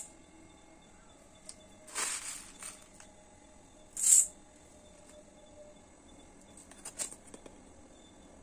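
Dry whole coriander seeds rattling off a plastic spoon into a stainless steel bowl: a longer rattle about two seconds in, a short sharp pour just after four seconds, then a few small clicks near the end.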